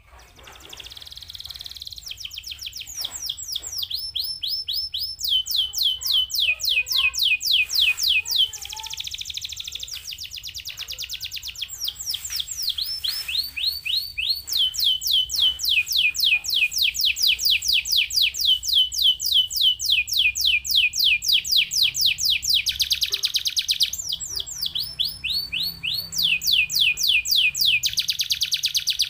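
Canary singing a long song of rapid trills, each phrase a fast run of repeated high notes before it switches to another.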